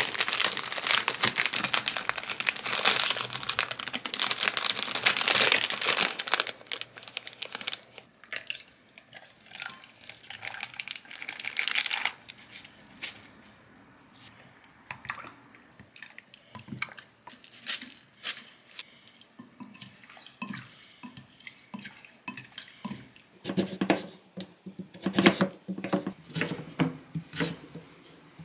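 Clear plastic bags crinkling loudly for the first few seconds as large cookies are slipped into them. Then water sloshing and a spoon clinking in a glass measuring jug as oysters are rinsed in salted water. Near the end a knife chops Korean radish on a wooden end-grain cutting board in a run of thuds.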